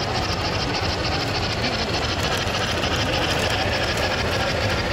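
O scale model train running steadily past: the steam locomotive's motor and the passenger cars' wheels rolling along three-rail track with a continuous rumble and faint clicking.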